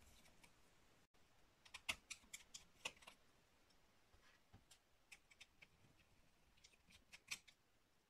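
Faint, scattered small clicks and taps of tools and plastic and metal laptop parts, with a cluster about two to three seconds in and a couple of sharper clicks near the end, as the cooling fan of an Asus Zenbook UX431 laptop is taken out.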